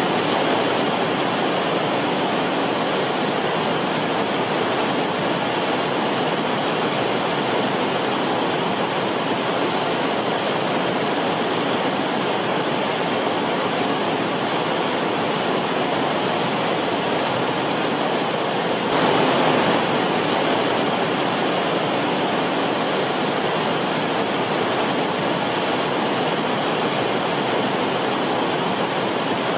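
Forest stream water rushing steadily, with a brief louder surge about two-thirds of the way through.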